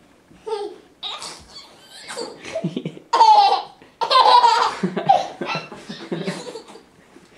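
Baby laughing hysterically in a string of bursts, the loudest peals about three and four seconds in.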